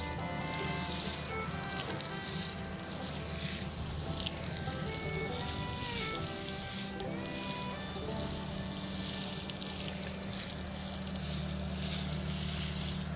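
Water from a garden hose spray nozzle showering onto loose, freshly planted soil: a steady hissing spatter that shifts a little as the spray is moved. Music plays underneath.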